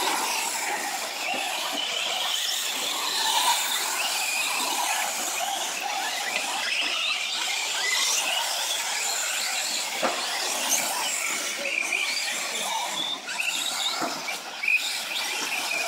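Several radio-controlled 4WD short-course trucks racing together, their motors and drivetrains whining at a high pitch that rises and falls as they accelerate and brake.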